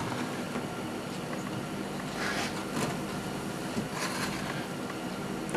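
Steady hum of a small space heater's fan running, with a few soft brief scrapes and a light click from handling parts.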